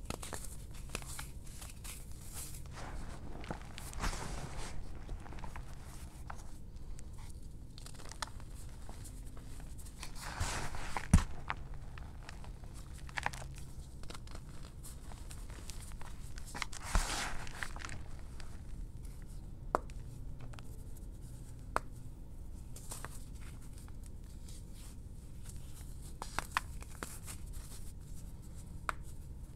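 Gym chalk chunks crushed and crumbled between the fingers: soft powdery crunching and rustling, with scattered crackles and a couple of sharper snaps as chunks break apart.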